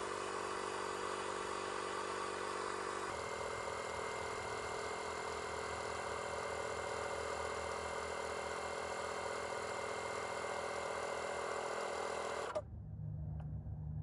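Slime 12-volt portable tire inflator running steadily, its small motor-driven compressor pumping air into a freshly plugged car tire. The sound shifts slightly about three seconds in and cuts off near the end.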